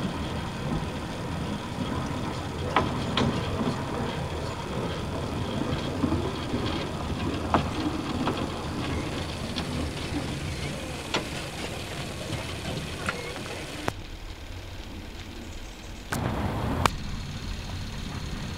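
Narrow-gauge steam train running, heard as a steady rumble and hiss with scattered sharp clicks on an old cine-film soundtrack. The sound changes abruptly about 14 seconds in and drops quieter, with a short louder burst near the end.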